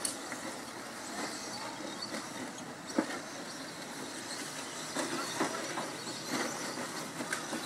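Radio-controlled short course trucks racing on a dirt track: a steady hiss of motors and tyres, with several sharp knocks, the loudest about three seconds in.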